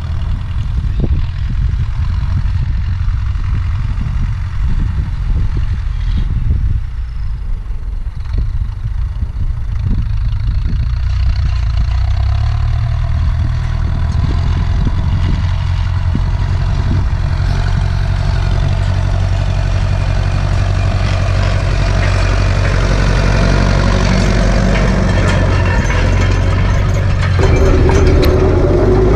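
Ursus C-360 tractor's turbocharged four-cylinder diesel engine running steadily under load while pulling field rollers. The drone grows louder and fuller from about halfway through, and a steady higher tone joins near the end.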